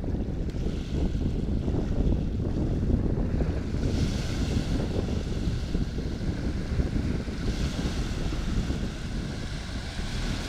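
Wind buffeting the microphone: a steady, dense low rumble throughout, with a few broad swells of higher hiss, about a second in, around four seconds in and around eight seconds in.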